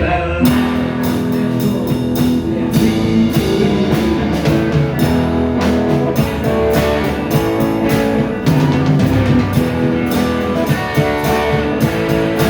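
Rock music with guitar and drum kit, the full band coming in loudly about half a second in and playing on with sustained guitar notes over a steady drum beat.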